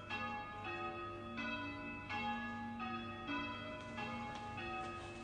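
Church bells rung in turn, a new bell struck about every two-thirds of a second, each note ringing on under the next.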